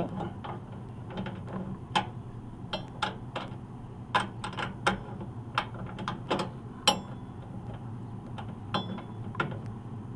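Irregular metallic clicks and knocks of hand tools working the blower belt tensioner on a rooftop HVAC unit as it is loosened, over a steady low hum.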